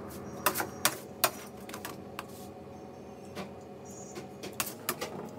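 A metal palette knife tapping and scraping on a stainless-steel worktop while working whipped cream: irregular sharp clicks, a cluster of three about half a second to a second in, the loudest last, and a few more near the end, over a steady hum.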